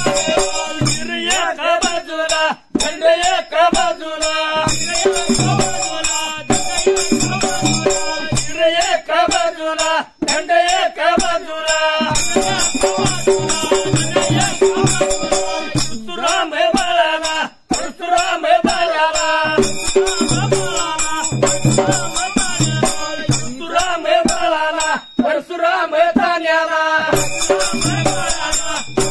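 Dhangari ovi folk song: a lead male voice chanting the verse over the steady beat of a large barrel drum (gaji dhol), with hand-held jingling percussion shaken in time. The music breaks off for an instant a few times.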